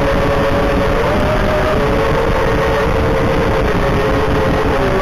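Eachine Wizard X220 quadcopter's brushless motors and propellers running in flight, heard close up from a camera on the drone: a steady whine of two tones that shift slightly in pitch as the throttle changes, over a rumble of wind and prop wash.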